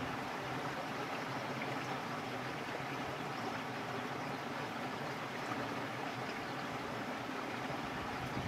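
Steady sound of water running in a small irrigation channel.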